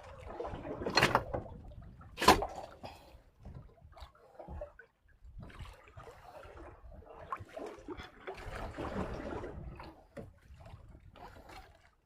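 Water splashing and sloshing around a small fishing boat, with irregular handling noises and two sharp knocks, the louder about two seconds in.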